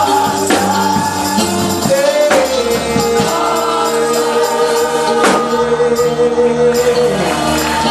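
Live gospel worship music: a choir sings long held notes over a band, with a few percussion hits.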